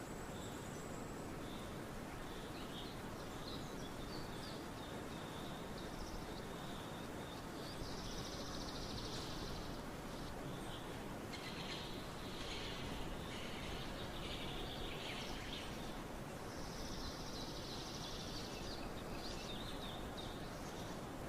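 Steady hiss of falling rain with birds singing over it: short repeated chirps throughout, and busier stretches of song midway and near the end.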